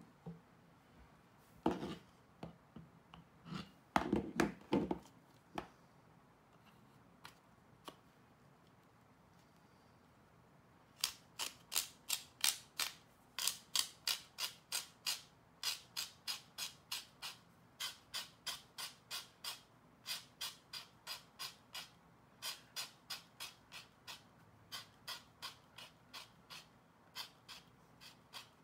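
A few handling knocks, then a BillKing CACO tip tool's blade scraping a leather cue tip as the cue shaft is twisted back and forth inside it: short, sharp scrapes at about two a second, trimming the tip.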